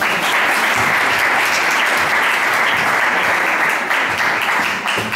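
Audience applauding: a dense, steady clatter of many hands clapping that dies away at the end.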